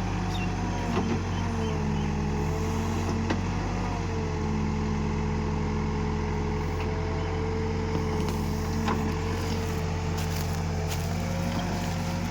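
Diesel engine of an Escorts Digmax backhoe loader running steadily while it works, with a wavering whine over the engine note and a few faint knocks.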